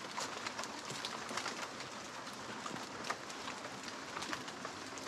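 Wet forest ambience: a steady hiss with scattered light ticks of water dripping onto leaves.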